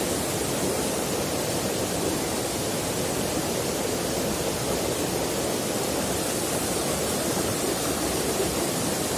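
Rocky mountain stream rushing and tumbling over boulders in a small cascade: a steady, even rush of water.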